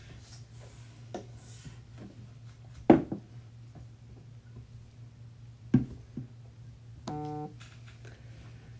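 Quiet room with a steady low hum, broken by two sharp knocks about three seconds apart. Near the end comes a short, flat buzz lasting under half a second.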